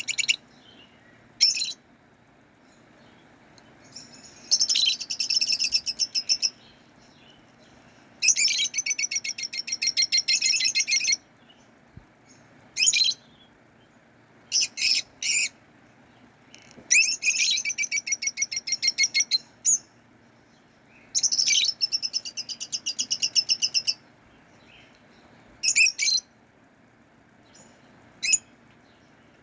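Lovebirds calling. High-pitched chattering bouts of rapid repeated chirps, each lasting two to three seconds, alternate with short single chirps, over a faint steady hum.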